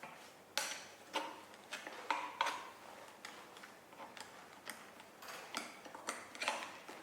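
Metal tire spoons clicking and knocking irregularly against the rim and each other while prying a scooter tire off its hub-motor rim, some knocks with a short metallic ring.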